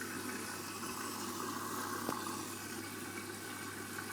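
Candy Grand'O Vita washing machine filling for its main wash: water running in through the detergent drawer and washing the powder into the drum, a steady rushing hiss with a low hum under it.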